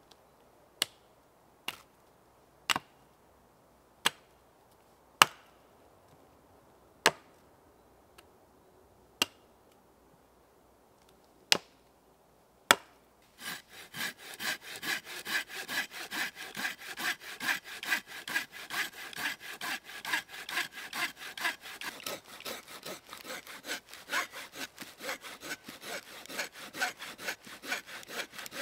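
About nine separate axe chops into dry, dead pine wood, a second or two apart. Then a folding hand saw, a Silky Gomboy, cuts through a dead pine log in quick, even strokes back and forth.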